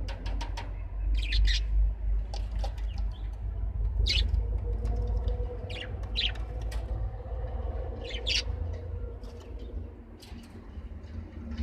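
Small pet birds chirping in short, separate calls every second or two, over a steady low rumble.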